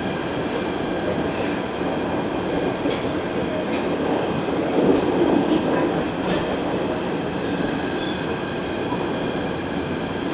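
Inside a PATH PA5 subway car in motion: the steady rumble of wheels and running gear on the track, with scattered sharp clicks from the rails and a louder swell about five seconds in.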